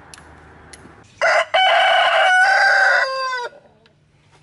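A rooster crowing once, starting about a second in: a short first note, then a long held call whose pitch falls away at the end.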